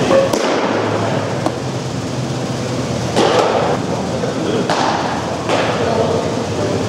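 Baseballs being hit and caught: a few sharp knocks, one to two seconds apart, over a steady background din.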